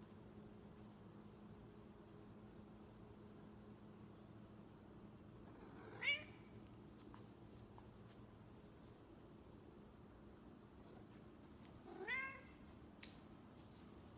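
Snowshoe cat meowing twice, two short calls about six seconds apart, the second a little longer.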